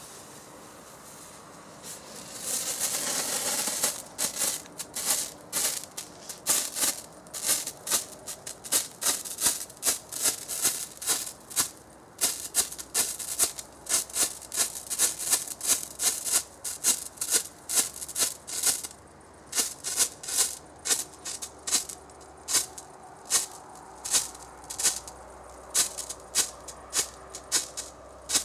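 Red pyrotechnic strobe torch burning. It fizzes for a couple of seconds as it catches, then gives a sharp hissing puff with each flash, about two a second and irregular.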